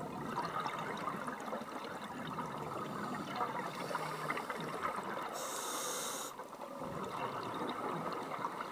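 Scuba regulator breathing underwater: a gurgling, crackling rush of exhaled bubbles, with one sharp hiss of inhalation through the regulator about five and a half seconds in.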